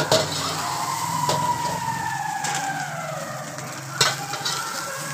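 Chicken fried rice sizzling in a wok as a metal ladle stirs it, with sharp ladle knocks against the pan about three times. A steady low hum lies underneath, and a slowly falling tone sounds in the background partway through.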